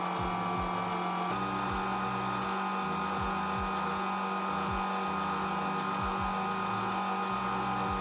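Small metal lathe running, a steady motor and gear whine, while a carbide-insert tool turns down a metal bar. The pitch shifts slightly about a second in.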